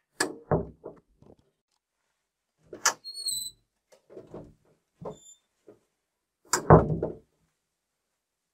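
Wooden bedroom door being handled: a series of knocks and thuds with a short squeak about three seconds in, and the loudest thud a little before the end.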